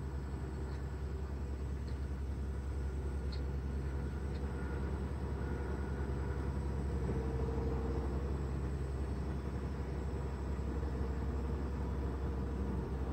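Tractor diesel engines running steadily as they drive over and pack a pile of chopped sorghum silage, a low, even drone.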